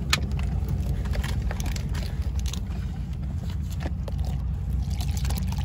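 Steady low rumble of a car heard from inside the cabin, with scattered small clicks and rustles over it.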